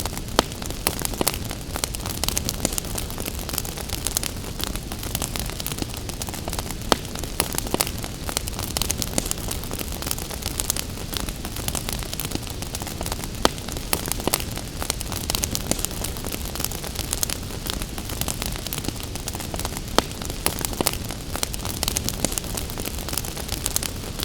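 Wood fire crackling in a fireplace, with frequent sharp pops and snaps scattered irregularly over a steady hiss of rain.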